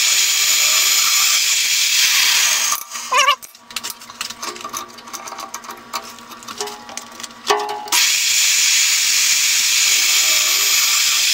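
Mag drill mounted on a drill-press stand, driving a 1/2-inch twist bit through steel bar. There are two loud, steady stretches of drilling, one of about three seconds at the start and one of about four seconds near the end. Between them comes a quieter spell of clicks and clatter.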